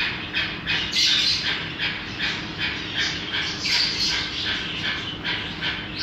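Small aviary birds calling: a steady run of short, high chirps, about three a second, with a louder, harsher burst about a second in and another near four seconds.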